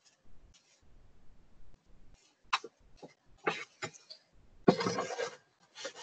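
A plastic milk jug being handled and picked up: scattered light clicks and taps, then sharper knocks, and a louder burst of rustling and knocking about five seconds in.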